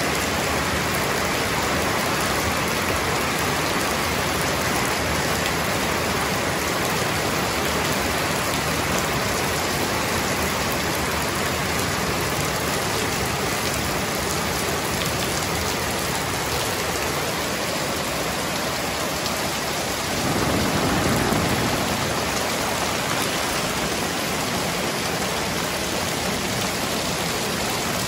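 Heavy rain pouring steadily. A low rumble swells briefly about two-thirds of the way through.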